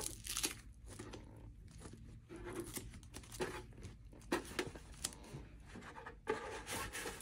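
A white wrapping sheet rustling and crinkling as it is unfolded by hand, in short irregular bursts.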